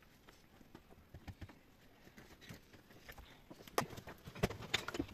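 Loose stones knocking and clattering as they are set on a dry-stone wall and handled on rubble. The knocks are sparse and faint at first, then come louder and closer together near the end.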